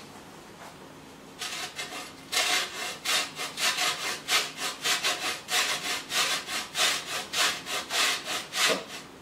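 Lemon peel being grated on a metal grater: a fast, even run of rasping strokes, about three a second, starting about a second and a half in and stopping just before the end.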